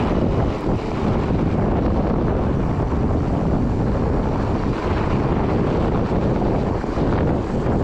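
Steady wind rush buffeting the camera microphone while riding a fat bike down a packed-snow trail, mixed with the rolling of the fat tyres over the snow.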